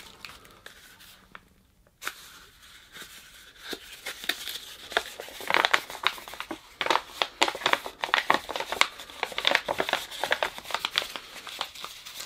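Hands crinkling and tearing packaging while opening a small parcel. It is quiet at first, then dense, sharp crackles start about four seconds in and grow louder.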